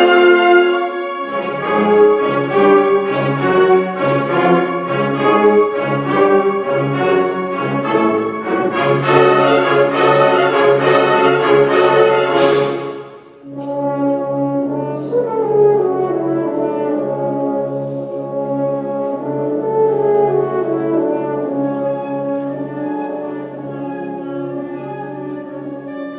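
Orchestral music led by brass, with French horns prominent. About twelve seconds in there is a brief high swish and a short drop in level, then a held low bass note under falling phrases.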